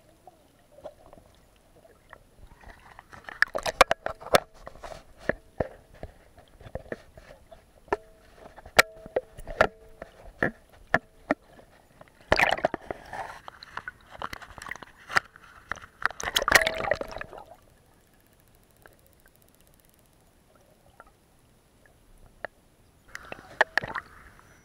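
Sea water sloshing and gurgling around a camera held in and out of shallow water, with scattered sharp clicks and knocks. A louder stretch of splashing comes about halfway through, followed by a quieter spell.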